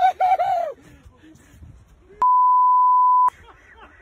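A short burst of excited shouting, then about two seconds in a steady one-pitch electronic beep lasting about a second, with all other sound cut out under it: a censor bleep dubbed over a word.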